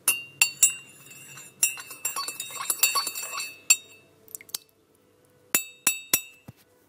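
A teaspoon clinking against a china cup: a run of quick stirring clinks, then three separate taps near the end, each leaving a short ring.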